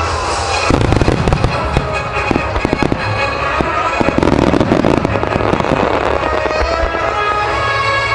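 Finale volleys of aerial firework shells bursting, many sharp bangs in quick succession over music. The bangs come thick from about a second in and thin out after about five seconds.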